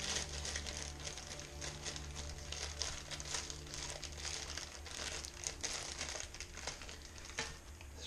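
Steady crinkling and rustling, a dense run of small crackles like something being handled.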